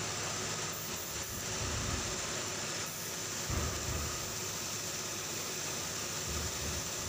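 Steady hiss of compressed air through a gravity-feed spray gun spraying matte clear coat onto the roof of a minibus.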